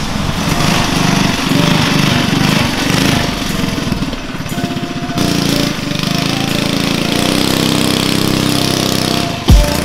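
Off-road go-kart's single-cylinder small engine running as the kart is driven, choppy and rough at first, then settling into a steadier drone about five seconds in. A sudden loud thump comes near the end.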